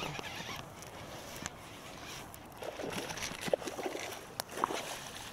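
A hooked bass splashing and thrashing at the water's surface as it is reeled in close to the bank. The splashes come irregularly, with a few sharp clicks, through the second half.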